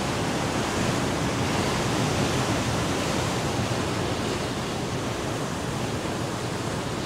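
Sea surf breaking against rocks: a steady rush of waves.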